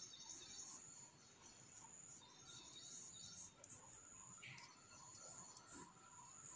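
Near silence, with faint light strokes of a mechanical pencil on drawing paper over a faint steady high-pitched tone.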